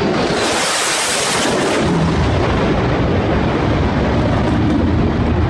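F/A-18 fighter jet making a low, fast pass: a loud jet roar with a sharp hiss over the first second or two, turning into a deep rumble as it flies away.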